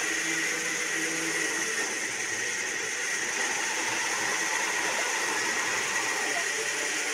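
Electric jug blender running steadily, liquidizing a full jar of watermelon chunks into juice.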